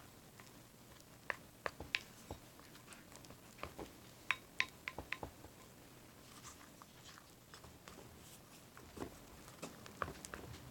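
Foamy fluffy-slime mix of glue, baking soda and shaving cream being stirred: irregular sticky clicks and crackles, some in quick clusters.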